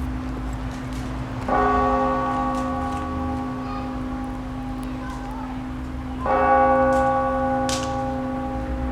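Russian Orthodox church bells ringing: a bell is struck twice, about five seconds apart, each stroke ringing out and slowly fading over the steady hum of the bells still sounding.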